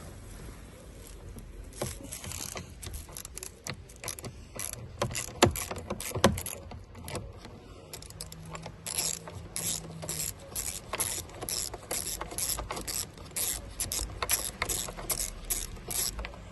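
Hand ratchet clicking while a 10 mm bolt is worked loose. The clicks are irregular at first, then settle into a quick even run of about three a second.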